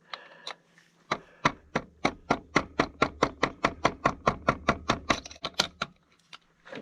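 Quick, even light hammer taps on a socket used as a drift, driving the wrist pin out of a two-stroke piston: about four taps a second for some four and a half seconds, after a couple of faint clicks.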